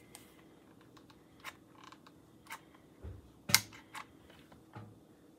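Small hot glue gun and a foil-lined cupcake being handled: scattered light clicks and taps over a faint steady hum, with one sharp knock about three and a half seconds in.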